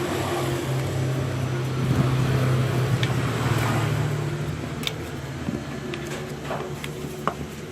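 A motor vehicle engine hums steadily. It swells about two seconds in, then fades, and a few light clicks and knocks come through.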